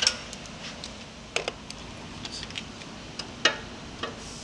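Hands handling the metal frame and wheel of a wheeled pressure-washer sandblaster make a few scattered light clicks and knocks, with sharper ones near the start and about three and a half seconds in.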